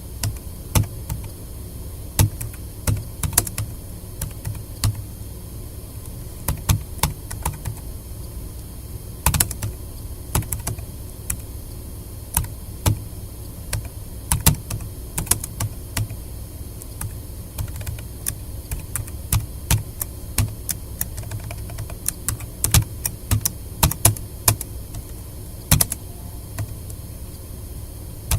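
Touch-typing on a tablet PC's keyboard: irregular runs of key clicks, several a second with short pauses between them, over a steady low hum.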